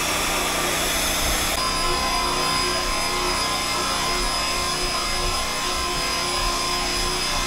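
Magnetic drill press with a large annular cutter boring through thick steel plate: the motor runs steadily under load with a high steady whine.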